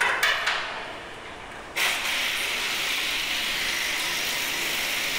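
Two sharp clicks from a torque wrench being pulled on a silo-leg sensor bolt, then, from about two seconds in, a steady hiss that holds on for several seconds.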